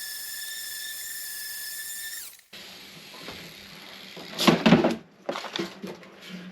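Bondo body filler being sanded on a motorcycle gas tank: a steady high whine that cuts off suddenly about two and a half seconds in, then a few rough scraping strokes just past the middle.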